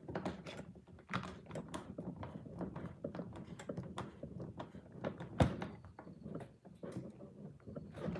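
Scattered light clicks, taps and knocks of electrical wire and fittings being handled while a supply wire is connected, with one sharper knock about five and a half seconds in.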